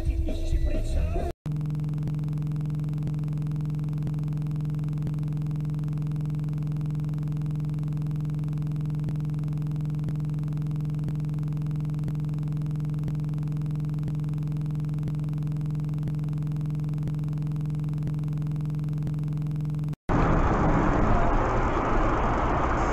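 A perfectly steady low hum with a ladder of overtones, unchanging in pitch and loudness, cut in and out abruptly. Near the end it gives way to rushing road and engine noise.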